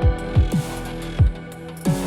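Background electronic music: deep bass drum hits that drop sharply in pitch, over held synth notes.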